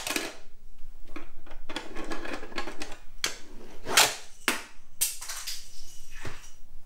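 Plastic clicks and knocks of a toy monster-truck launcher ramp being handled and set off, a sharp snap about four seconds in the loudest, with rustling between them.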